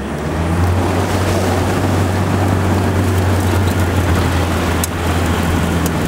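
Safari vehicle's engine running with a steady low drone as it drives through a shallow river, with water churning around it.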